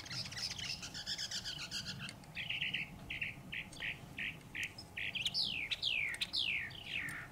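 Wild songbirds singing. A warbling chatter is followed by a run of short, evenly repeated notes, about three a second, and then four loud downward-slurred whistles near the end.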